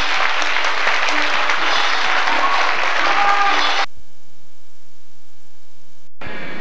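Audience applauding and cheering with music playing, cut off abruptly a little under four seconds in by a steady electronic buzz from the blank end of a videotape, which drops out briefly near the end.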